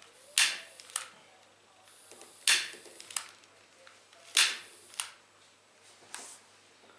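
Long-nosed piezo utility lighter clicked four times, about every two seconds, each a sharp snap followed by a softer click about half a second later, while it fails to light a methylated spirits burner.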